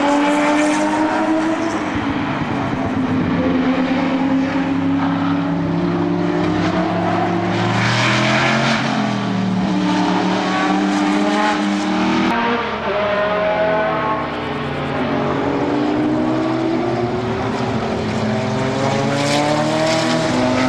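Group C sports-prototype race cars passing one after another at speed. Their engines rise and fall in pitch as each car approaches and goes by.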